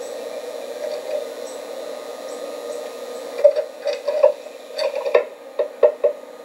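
Irregular run of about eight sharp taps and scratches on the wooden nest box, from the adult white-breasted nuthatch on the box, starting about halfway in over a steady hiss.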